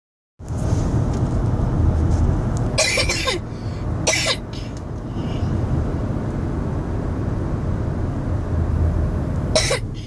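A boy coughing: a cough about three seconds in, another a second later, and a third near the end. Under them is the steady rumble of road noise inside a moving car.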